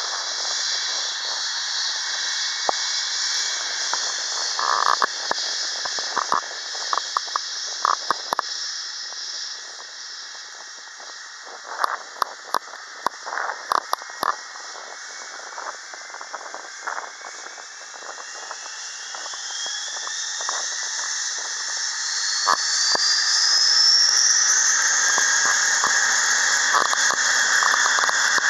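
Airbus A320-232's IAE V2500 jet engines running with a steady high whine and hiss, then spooling up to takeoff thrust: a whine rising in pitch from a little past halfway, as the sound grows louder. Scattered sharp clicks in the first half.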